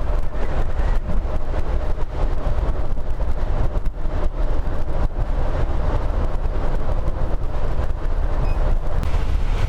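Double-decker coach rolling along a wet highway, heard from the driver's cab: a steady low engine and road rumble with tyre hiss on the wet asphalt, the coach running downhill in automatic.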